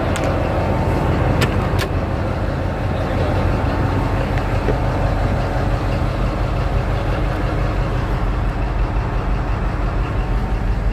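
Large mining haul truck's diesel engine idling with a steady low rumble, with a few sharp clicks in the first two seconds.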